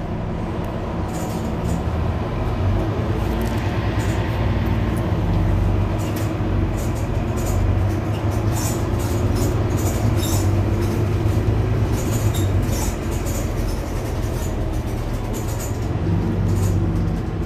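Mercedes-Benz Citaro C2 Hybrid city bus standing with its engine idling, a steady low hum, with scattered light clicks over it.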